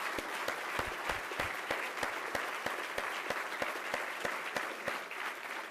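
Audience applauding in a large hall, with one person's nearer, sharper claps at a steady pace of about three a second over the crowd's clapping. It begins to die down near the end.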